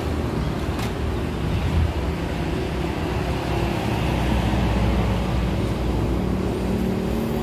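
Steady low rumble of a motor vehicle engine running, swelling a little about four to five seconds in.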